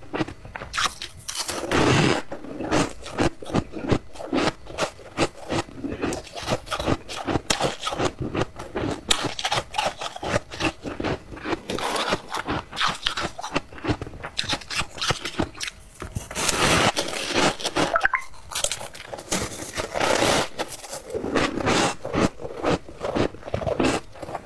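Close-up chewing of squeaky ice, rapid crunches following each other without a break, with a few louder, longer bites.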